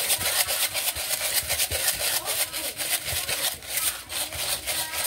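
Sea salt grinder being worked over a pot, a fast, irregular rasping crunch of salt crystals being ground.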